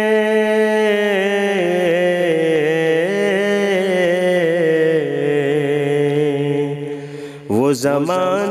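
A man's voice singing a naat, drawing out one long wordless line that winds up and down in pitch. It fades briefly near the end, then a new phrase starts with a rising swoop.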